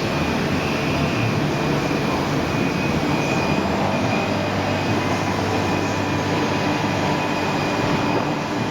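Mikron HSM 600 U five-axis high-speed milling machine running: a steady, even machine noise with a faint high whine.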